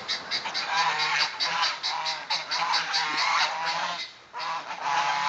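Domestic geese honking, many short calls overlapping in a continuous chorus, with a brief lull about four seconds in.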